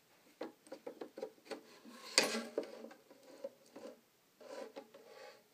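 Light, irregular clicks and taps of handling noise as a phone camera is carried about, with one louder knock about two seconds in.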